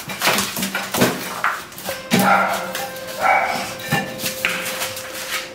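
A dog gives a few short barks, about a second apart. Between them come several sharp knocks and scuffs: a blind, emaciated dog stumbling about and bumping into its food bowl.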